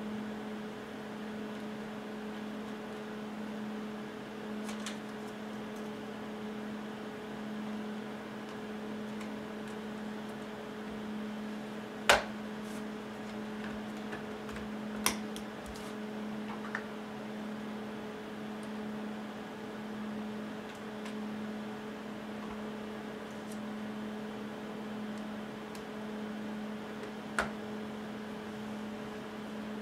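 A steady electrical hum with a few sharp clicks and taps, the loudest about twelve seconds in, as small parts are handled while the laptop is reassembled.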